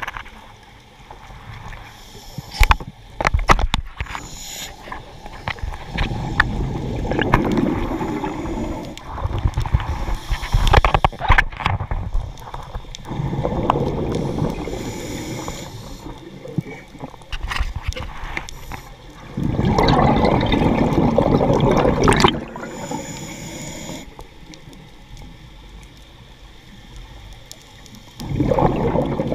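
Scuba diver breathing underwater through a regulator: exhaled bubbles gurgle out in bursts of two to three seconds, about every six or seven seconds, heard through the camera's underwater housing. A few sharp clicks come in between.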